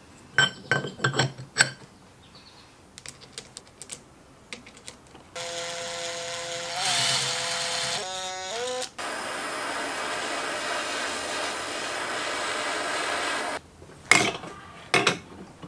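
Light metal clinks of bolts and gear parts being handled, then a power tool runs steadily for about eight seconds, with a brief change in pitch partway through, while the ring gear bolts are driven into the differential carrier. More metal clinks come near the end.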